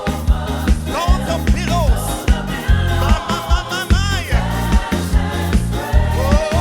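Gospel band and singers performing a hymn, with voices over bass and a steady drum beat.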